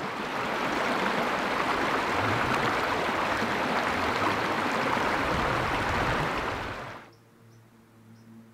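Shallow, fast creek rushing over rocks, a steady wash of water that stops about seven seconds in.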